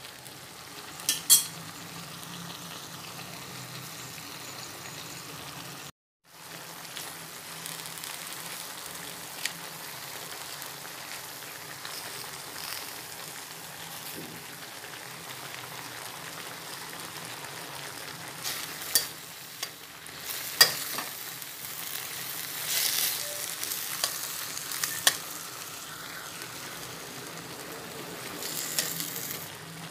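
Chicken and vegetables sizzling as they are stir-fried in a steel wok, with a metal spatula scraping and clinking against the pan now and then. The sound drops out for a moment about six seconds in.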